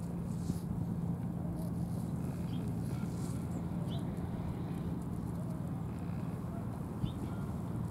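Steady low outdoor rumble with a faint steady hum underneath, and a few short, high, rising bird chirps spaced a second or more apart.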